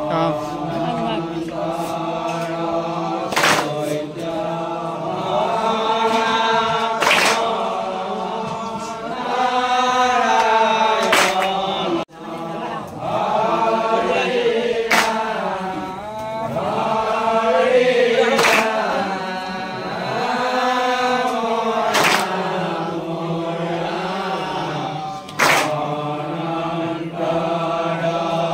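A group of men chanting nam, Assamese Vaishnavite devotional singing, in unison with long gliding notes, marked by a sharp hand clap about every three and a half to four seconds. The chant breaks off for a moment about twelve seconds in.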